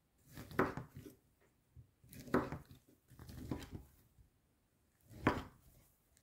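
Kitchen knife cutting slices from a loaf of homemade chicken ham and meeting a wooden cutting board, four cuts a second or two apart.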